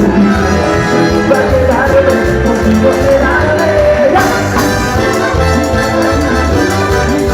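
Cuarteto dance music played by a band, with a steady pulsing bass beat under a melodic lead line.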